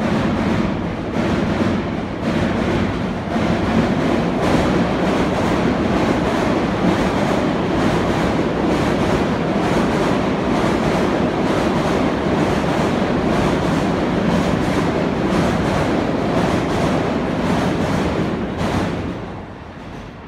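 JR E217, E231 and E233 series electric commuter trains passing at speed without stopping: a steady rumble with wheels clattering over the rail joints. It drops away near the end.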